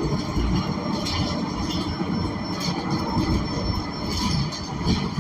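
Interior noise of a Gillig BRT Plus transit bus with a Cummins Westport L9N natural-gas engine: a steady low rumble of engine and road, with occasional light rattles and clicks.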